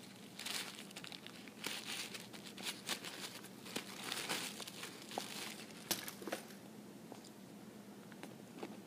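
Paper packaging crinkling and rustling as a small jewellery box is unwrapped and opened, with a few light clicks about six seconds in and near the end.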